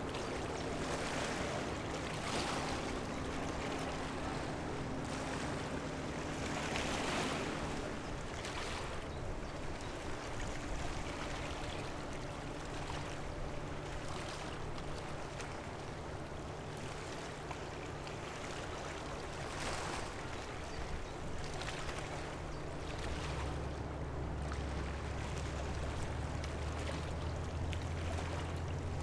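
River water washing against the shore in repeated surges, over the steady low drone of ships' engines; a deeper engine drone comes in about three-quarters of the way through.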